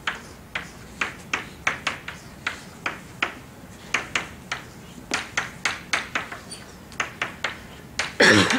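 Chalk tapping and clicking against a blackboard while writing, in a string of sharp irregular taps about two to three a second, with one louder knock near the end.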